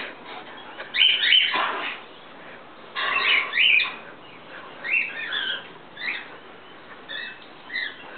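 High-pitched animal squeals in short bouts, loudest about a second in and again around three to four seconds in, with fainter squeaks after.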